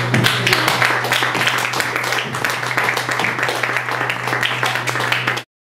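Audience clapping, many quick irregular claps over a steady low hum, until the sound cuts off suddenly near the end.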